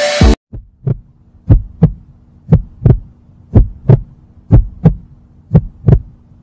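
Heartbeat sound effect: low double thumps about once a second, over a faint steady hum.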